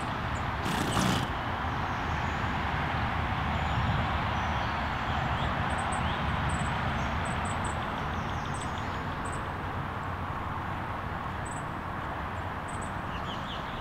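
Steady outdoor background noise with brief high chirps of small birds now and then, and one short rustle about a second in.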